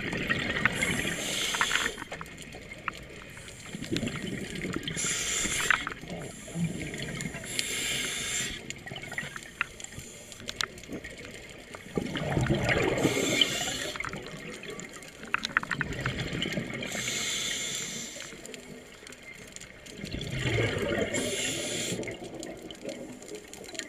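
Scuba diver breathing through a regulator underwater: a hiss on each inhale, then a gurgling burst of exhaust bubbles on each exhale, a breath every few seconds. Scattered crackling clicks run under it, which divers put down to fish feeding.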